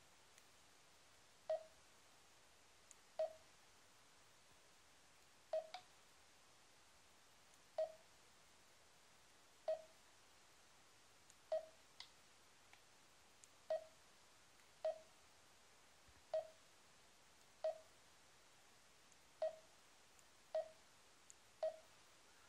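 Garmin dezl 760 LMT sat-nav sounding its short key beep for each tap on the touchscreen: about thirteen single mid-pitched beeps, irregularly spaced a second or two apart, with a few fainter clicks between.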